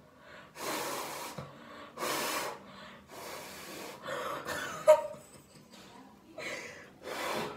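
A person blowing hard through a wet, soapy washcloth to puff up foam: about six strong, hissing blows, each under a second, with short gaps between. There is a brief sharp sound about five seconds in.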